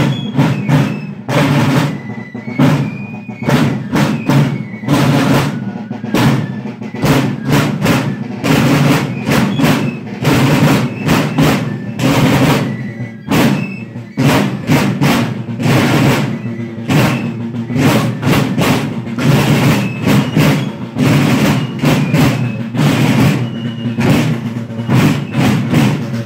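Marching drums of a folk-march company beating a fast, steady march rhythm.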